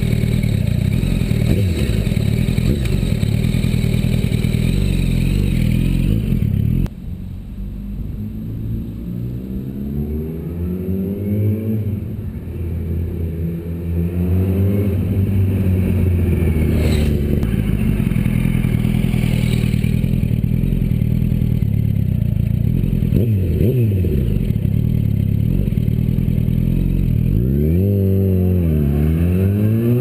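Yamaha YZF-R1 sports motorcycle's inline-four engine running close by, then, after a sudden drop in level about seven seconds in, revving up in repeated rising sweeps as it accelerates through the gears. Near the end the pitch falls and rises again as the bike eases off and pulls away.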